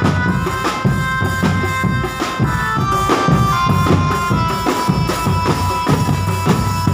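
Drum band playing: dense, steady drumming with a melody of long held notes over it.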